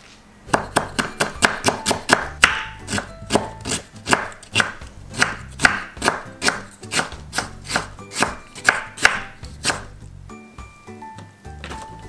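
Kitchen knife julienning sliced pickled radish (danmuji) on a wooden cutting board: a steady run of sharp chops, about three or four a second, that stops about ten seconds in. Soft background music with short plucked notes is heard faintly, most clearly after the chopping stops.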